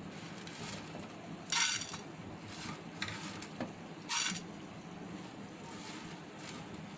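Spatula stirring and scraping whole spices dry-roasting in a pan: two louder scrapes, about a second and a half in and about four seconds in, with lighter stirring strokes between.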